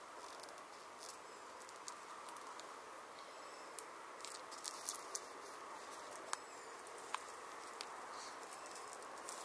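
Quiet outdoor evening ambience: a steady faint hiss with scattered small clicks and ticks, a few of them close together around the middle.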